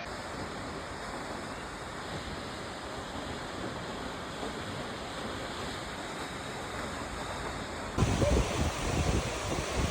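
Steady rushing noise of a waterfall. About eight seconds in it changes abruptly to wind buffeting the microphone in low gusts.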